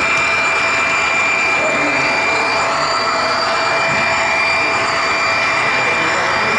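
HO scale model train rolling along the track: a steady whine over an even rolling rumble, picked up close by a camera riding on the train.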